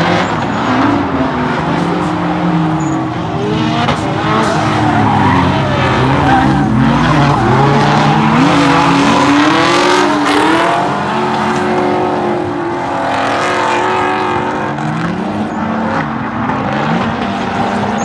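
Drift cars sliding sideways under power: several engines revving up and down, their pitch rising and falling with throttle and shifts, over continuous tyre screech.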